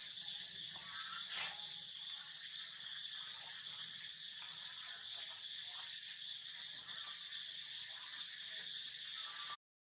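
Steady high-pitched hiss with a faint tap about one and a half seconds in; the sound drops out abruptly just before the end.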